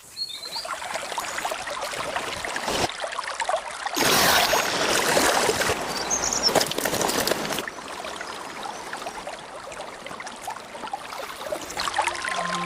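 Water running and splashing, like a stream, heard as a steady rushing hiss that changes abruptly several times, loudest from about four to seven and a half seconds in.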